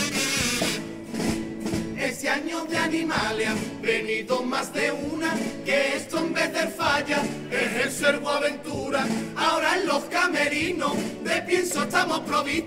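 A comparsa's choir of voices singing together over instrumental accompaniment with a strummed or beaten pulse.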